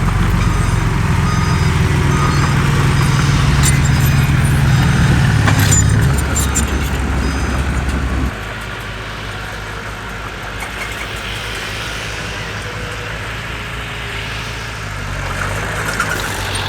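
A heavy earth-moving machine's diesel engine running hard, then dropping sharply toward idle about eight seconds in, and picking up again near the end. A few sharp clicks and knocks sound over the engine partway through.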